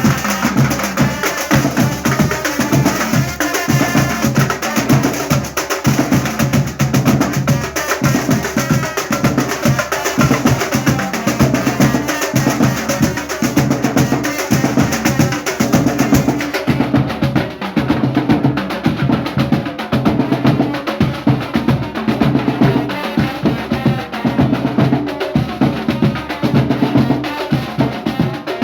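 Loud percussion-heavy music with a fast, driving drum beat. About seventeen seconds in, the highest treble drops away while the beat carries on.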